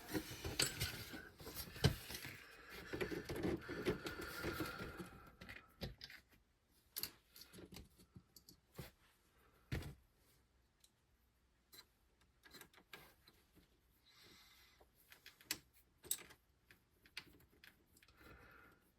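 Light clicks and taps of small metal screws, hex drivers and plastic wheel parts being handled while RC wheels are reassembled. The clicks come thickly for the first few seconds, then only now and then, with one louder knock about ten seconds in.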